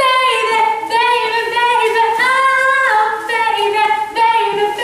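A woman's voice singing unaccompanied in long held high notes that step up and down in pitch.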